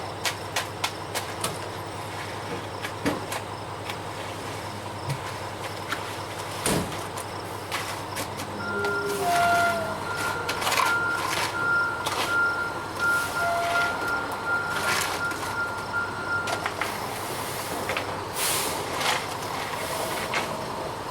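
Ready-mix concrete truck running, with scattered knocks and clatter. A steady high tone sounds from about nine to seventeen seconds in.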